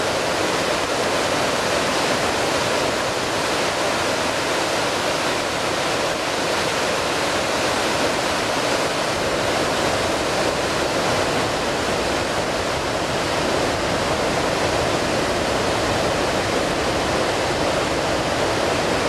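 A river in flood pouring through a rocky gorge as whitewater and a waterfall: a steady rushing roar of churning water that does not let up.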